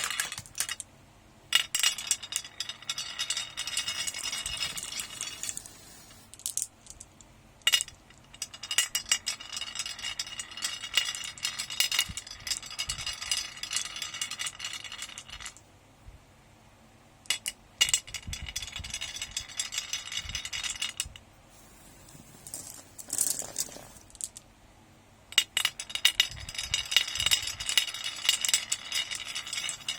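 Marbles rolling and clattering down a marble run track: dense runs of rattling clicks and clinks lasting several seconds each, broken by short quieter gaps and a few single sharp clicks.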